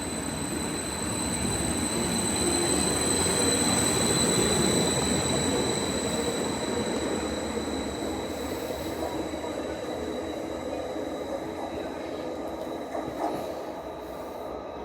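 A train running past at the platform: a rumble that swells to its loudest about four seconds in and then slowly fades, with a steady high-pitched tone over it.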